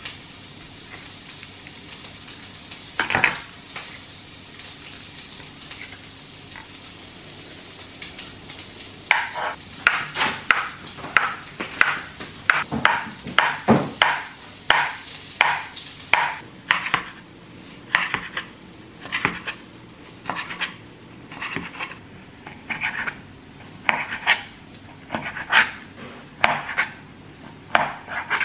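Chef's knife cutting avocado and then raw salmon on a plastic cutting board: quiet at first, then from about nine seconds in a steady run of knife taps on the board, about two a second.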